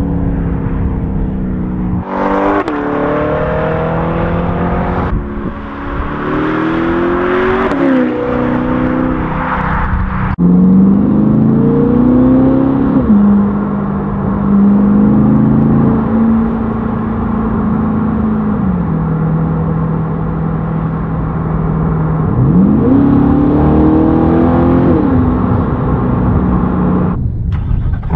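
2021 C8 Corvette's 6.2-litre V8 through a 2M Fabrication cat-back exhaust, revving up in several pulls, each rise in pitch ending in a drop at an upshift, with stretches of steady cruising between them.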